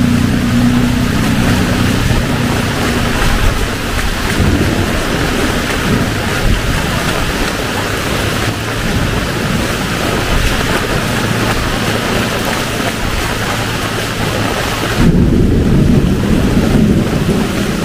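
Heavy rain falling steadily. A vehicle engine's low hum fades out over the first couple of seconds, and a louder low rumble sets in near the end.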